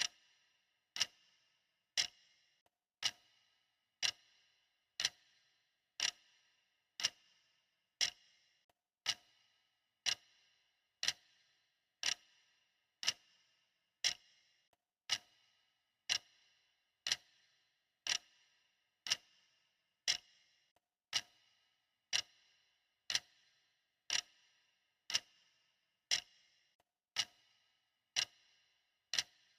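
Clock ticking steadily, one sharp tick about every second, each with a short bright ring after it.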